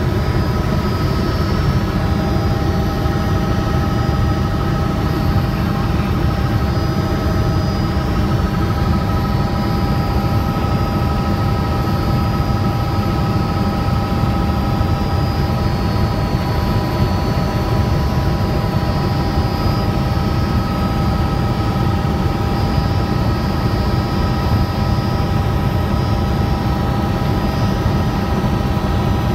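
Helicopter in flight: a loud, steady drone of rotor and engine, with a few thin steady whining tones over it and no change in pitch or level.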